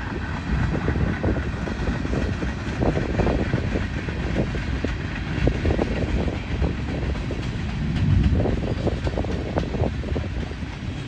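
Freight train passing: a steady low rumble of steel wheels on the rails as covered hoppers and tank cars roll by. Irregular clicks and knocks run through it as the wheels cross rail joints.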